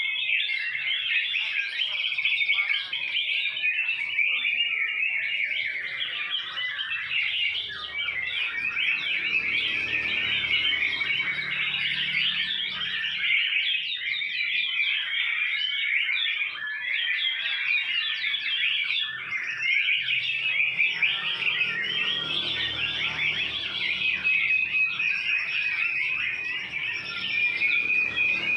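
White-rumped shama singing nonstop: a dense, unbroken stream of fast, rapidly changing whistled phrases and trills, with no pauses between them.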